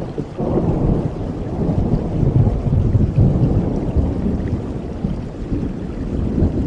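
Thunderstorm ambience: a low rolling rumble of thunder over steady rain, swelling about half a second in and strongest in the middle.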